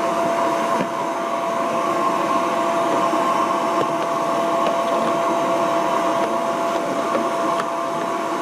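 Vacuum cleaner running steadily with a constant motor whine, sucking up dust from under a refrigerator.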